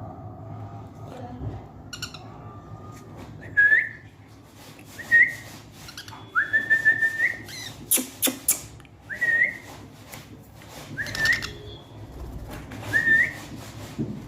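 Short, clear whistles that glide upward, repeated every second or two, one held for about a second, among clicks and rustling.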